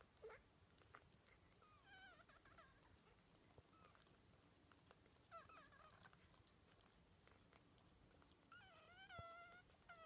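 Two-day-old miniature dachshund puppies squeaking faintly: three short, wavering high-pitched whimpers, about two seconds in, near the middle, and a longer one near the end.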